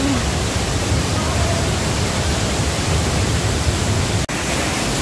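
Steady rush of a waterfall, an even wash of noise that briefly cuts out about four seconds in.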